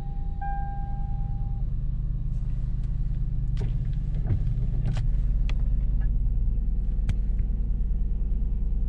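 A car's engine running, a low steady rumble heard inside the cabin, swelling a little about halfway. An electronic tone sounds in long beeps and stops about a second and a half in, and a few sharp clicks follow.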